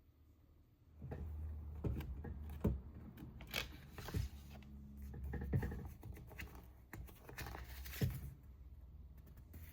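Handling noise in a small room: irregular knocks, clicks and rustles over a low rumble, starting about a second in, with two sharper knocks standing out.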